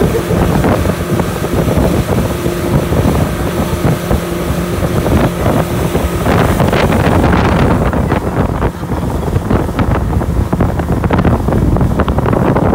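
Motorboat running across open water, its engine a steady hum, with wind rushing over the microphone. About halfway through, the hum is covered by louder, rougher wind and water noise.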